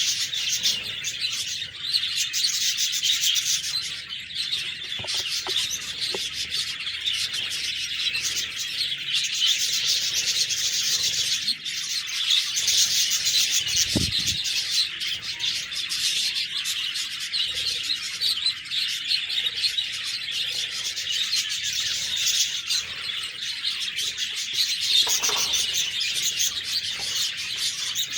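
A flock of budgerigars chirping and warbling without pause, many birds at once, with a single soft low thump about halfway through.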